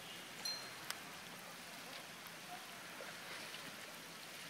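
Steady patter of light rain, with a couple of short clicks in the first second.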